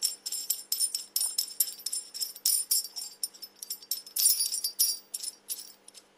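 Lock nut being screwed onto the threaded beer shank against its backing plate, the loose parts clinking with quick, irregular metallic jingles and ringing, several a second, stopping near the end.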